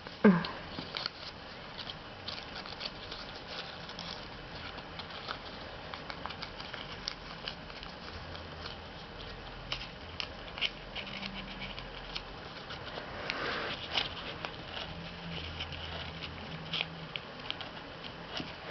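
Origami paper rustling and crinkling as folded paper units are handled and pushed into one another, with a few sharper clicks scattered through.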